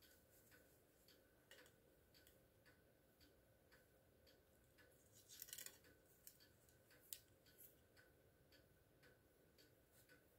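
Near silence, with faint scattered ticks and a brief soft rustle about five seconds in: a wig's hair being handled and fluffed on the head.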